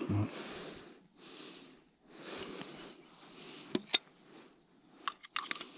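Steady, audible breathing, several breaths about a second apart, then light clicks and taps of plastic shotgun shells being handled at the open breech of a double-barrelled hammer shotgun, two clicks about two-thirds through and a quick cluster near the end.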